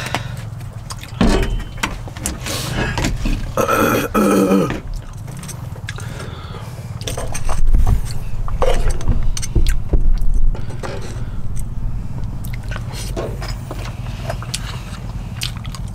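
A metal spoon scraping rice out of a plastic container, with small clicks and knocks of utensils, over a steady low hum. A short vocal sound comes about four seconds in.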